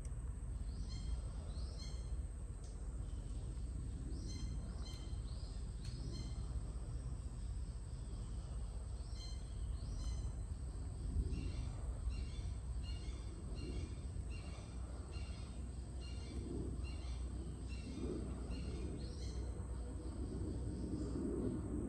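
Birds calling with short, repeated high notes, few at first and then coming about once or twice a second in the second half, over a steady low outdoor rumble.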